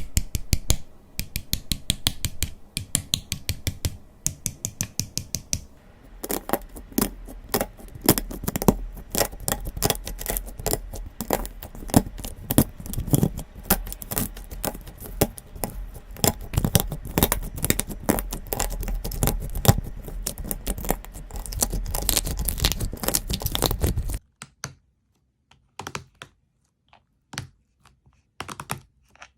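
Slime being squeezed and pressed, making a fast run of small crackling pops and clicks that thins to a few scattered clicks in the last five seconds.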